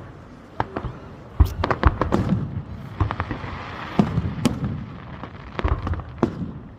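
Aerial fireworks going off: irregular sharp bangs, the loudest about one and a half seconds in and around four seconds in, over a dense crackling sizzle that sounds like cooking bacon or chips going into the fryer.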